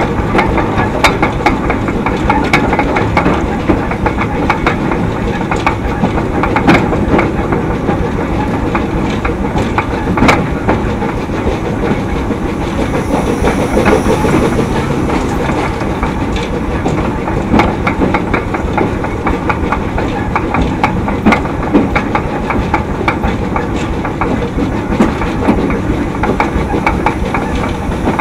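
Wood-fired 2 ft narrow gauge steam train on the move: a steady rumble with irregular clicks of the wheels over the rail joints, and a faint high squeal briefly near the middle.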